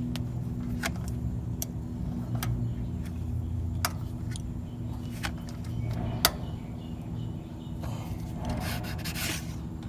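Hand work on a small engine's ignition coil mounting: scattered sharp metal clicks and taps as the coil is pressed and its screws snugged down, then a rubbing scrape near the end.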